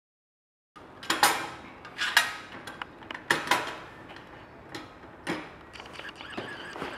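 Irregular metallic clicks and knocks from a steel corner-cleaning tool being handled and seated against a welded uPVC window profile. The knocks are loudest and most spaced in the first few seconds, then turn into lighter clatter.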